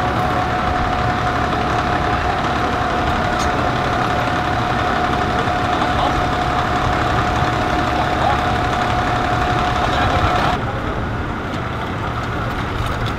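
Steady engine rumble of idling emergency vehicles, with a steady high-pitched hum over it. About ten and a half seconds in the hum cuts off suddenly and the overall sound drops a little.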